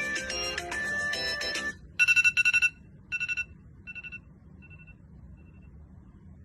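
An electronic alarm ringtone plays a busy melody that cuts off about 1.7 seconds in. A string of short beeps at one fixed pitch follows, in groups that grow fainter and further apart until they die out.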